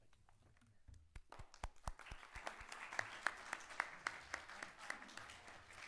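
Small audience applauding in a meeting chamber. A few scattered claps start about a second in, fill out into steady clapping, and stop near the end.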